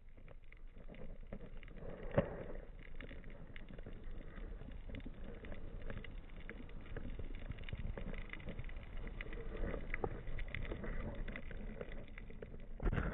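Underwater ambience picked up by a camera in its waterproof housing: a faint hiss with dense, irregular crackling and small clicks. There is one sharper click about two seconds in and a louder burst of noise at the very end.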